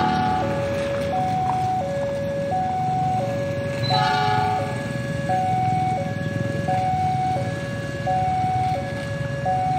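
Railway level-crossing warning alarm: two electronic tones that alternate evenly, high and low, each held about 0.7 s, over a low rumble. A brighter ringing note sounds briefly near the start and again about four seconds in.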